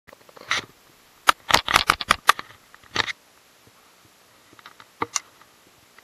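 Handling noise close to the microphone: a quick run of sharp clicks and scrapes in the first three seconds, then a few lighter clicks a couple of seconds later, as the camera is repositioned and the baitcasting rod and reel are taken in hand.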